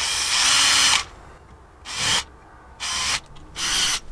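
Power drill run in bursts against a wooden trellis rail: one run of about a second, then three short bursts.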